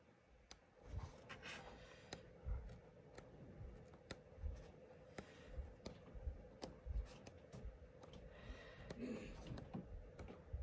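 Large sheets of cardstock being flipped through by hand: quiet handling with irregular sharp clicks and soft thumps as the sheets turn and settle, over a faint steady hum.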